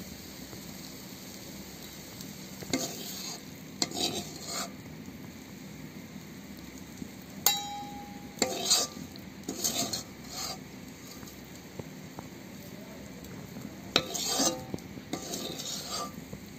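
Metal spatula scraping and scooping fried mutton liver around a kadai, in short scrapes that come in clusters, over a steady low sizzle. One sharp metallic clink rings briefly about seven and a half seconds in.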